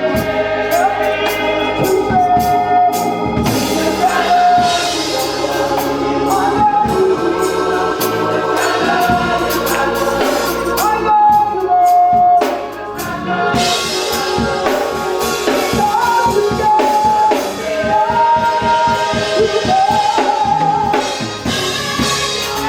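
Gospel music: a choir singing held notes over organ and drums.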